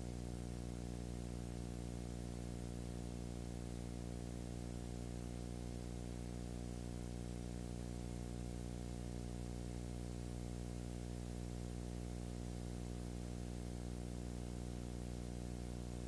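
Steady electrical hum with a stack of low overtones under an even hiss, unchanging throughout: the background noise of the transfer of a silent home movie, with no sound from the scene itself.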